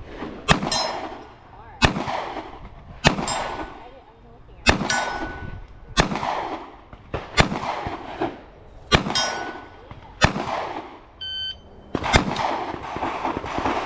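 Handgun shots fired at a slow, steady pace, nine in all, about one every second and a half, each with a short echo off the range. A short electronic shot-timer beep sounds about 11 seconds in, just before the last shot.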